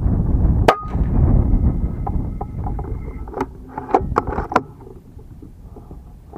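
Strong wind buffeting the microphone with a low, rumbling roar that eases after about four seconds. A single sharp crack about a second in, then a few short, sharp ticks a little later.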